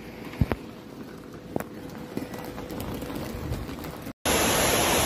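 Faint flood ambience with a few sharp knocks, then, after an abrupt cut about four seconds in, a loud steady rush of floodwater.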